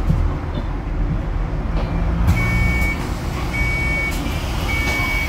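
Hybrid bus running, heard from on board as a steady low rumble; from about two seconds in, a high warning beep sounds about once a second.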